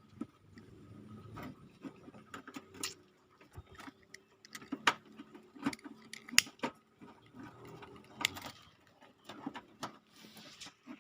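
Irregular sharp clicks and light knocks, unevenly spaced, the loudest a little before the middle and about two-thirds through.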